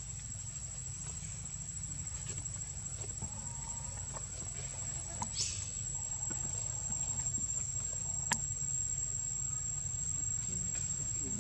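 Steady high-pitched insect drone, one unbroken tone, over a low rumble. A short hiss comes about five and a half seconds in and a sharp click a little past eight seconds.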